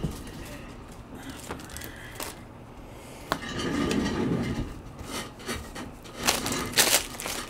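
Trading cards and their packaging handled on a tabletop: a few sharp clicks early, a muffled low sound midway, then a loud burst of rustling and crinkling near the end.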